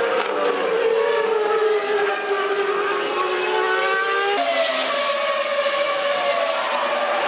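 Formula One car engines at racing speed, their pitch mostly falling as the cars brake and change down. About halfway through the sound cuts abruptly to another car running at a steadier pitch.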